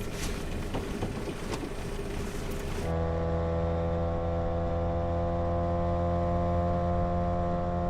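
Rustling with scattered clicks, then from about three seconds in a boat motor running at a steady speed, an even unchanging hum.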